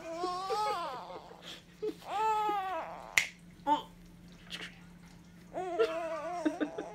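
A baby's high-pitched coos, three drawn-out ones with wavering pitch, with a few sharp finger snaps in between, the clearest about three seconds in. A low steady hum runs underneath.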